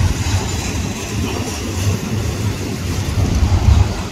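A loaded unit coil train of steel-coil railcars rolling past on a curve, a steady low rumble of wheels on rail.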